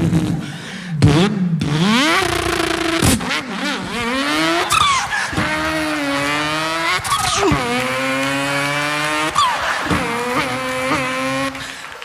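A boy's voice imitating a car engine revving: the pitch climbs, breaks off and climbs again several times, like shifting up through the gears, with a few sharp downward swoops.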